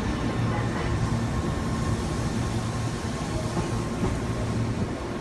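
Tobu Tojo Line electric commuter train running, a steady low hum that swells and eases slightly under an even noisy wash.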